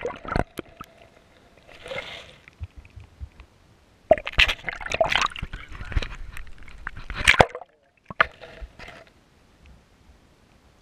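Ditch water sloshing and gurgling against a submerged GoPro, with knocks and scrapes on the camera, in louder bursts about four and seven seconds in.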